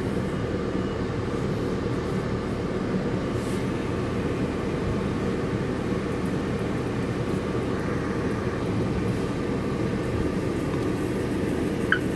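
PDQ ProTouch Tandem car wash machinery running with a steady hum, with pumps and water spray, heard through a car's windshield. A sharp click comes near the end.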